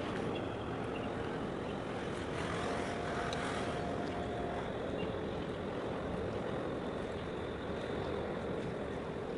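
Steady low engine rumble of a large ship and harbour tug working across open water, mixed with some wind noise on the microphone.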